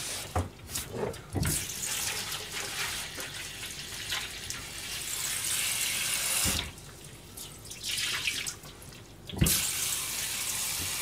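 Kitchen tap running, a steady hiss of water that stops abruptly about six and a half seconds in and is turned on again near the end.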